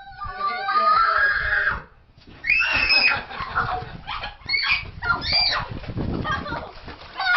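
A dog's cries: a held, howl-like call for the first couple of seconds, then after a short pause a run of high-pitched squealing yelps.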